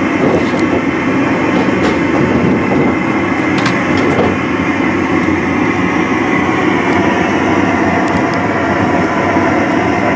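Steady roar of a propane-fired solder-pot furnace heating soldering coppers, with a few faint clicks as the hand iron works the tin solder on the copper gutter seam.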